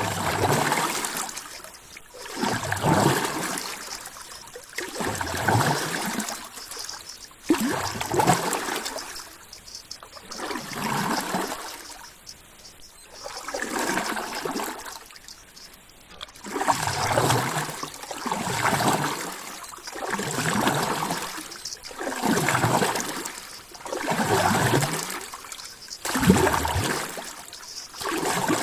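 Ocean water washing and splashing in regular surges, one about every two and a half seconds, rising and falling in loudness.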